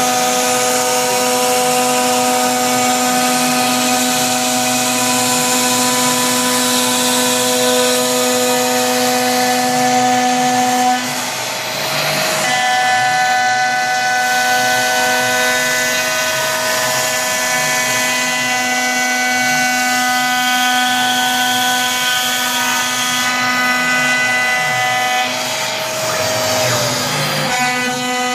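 CNC router spindle milling laminate flooring, a steady whine of several tones mixed with a vacuum cleaner running with its nozzle held at the cutter to pick up the chips. The pitch pattern shifts about twelve seconds in, and one tone slides down slightly near the end.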